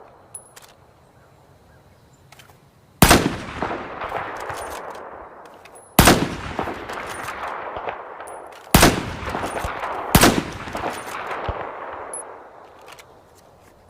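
Four shots from an M40 bolt-action sniper rifle, each a sharp crack followed by a long echoing tail lasting a few seconds. The first three come roughly three seconds apart, the last about a second and a half after the third.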